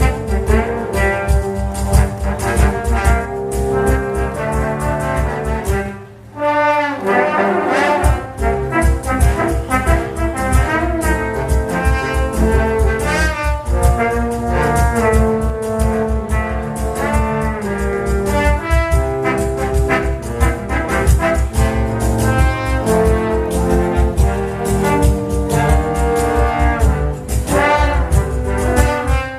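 Brass band with trombones, trumpets and drums playing a lively tune over a steady beat. About six seconds in, the drums drop out for a short break with a sliding brass figure, and the full band comes back in about two seconds later.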